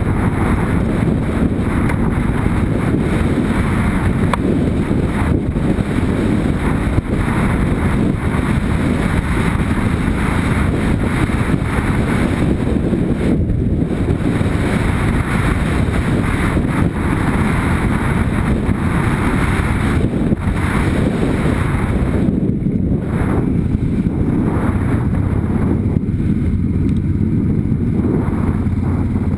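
Motorcycle ride heard through wind buffeting the microphone: a steady rush of wind noise with the bike's engine running underneath.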